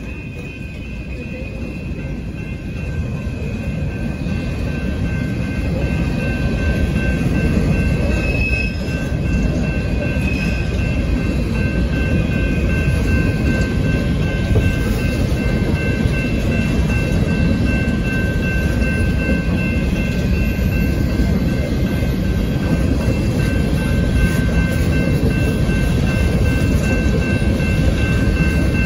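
BNSF coal train's hopper cars rolling past at a crossing: a steady rumble and clatter of wheels on rail that builds over the first several seconds and then holds. Thin, steady high-pitched squeals ride over it, typical of wheel flanges on the rail.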